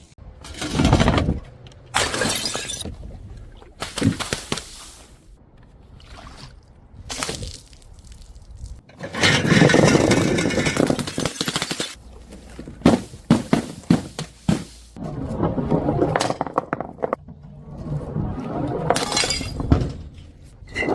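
Glass bottles smashing on stairs, one after another, with the broken glass clattering and crunching between the breaks.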